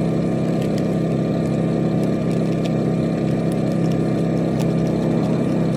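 An engine running steadily at an even idle, a constant low drone that does not rev. A few faint ticks of a seasoning packet being handled sound over it.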